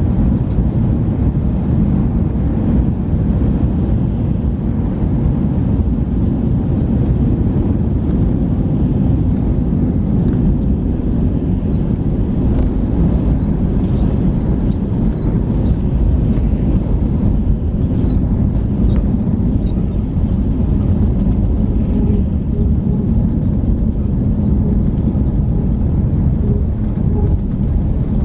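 Steady low rumble of engine and airflow noise heard inside the cabin of an Airbus A321.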